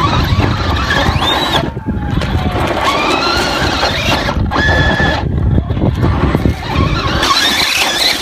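Electric motor of a radio-controlled truck whining, its pitch rising and falling with the throttle as it climbs, over a steady low rumble.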